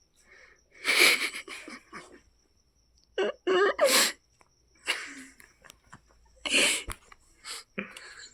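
A person's breathy vocal bursts, about six of them, with one stretch of wavering pitch around the middle.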